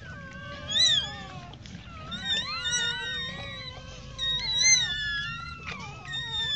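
Newborn puppies squealing and whimpering, several high thin cries overlapping, with louder squeals about a second in and again near five seconds.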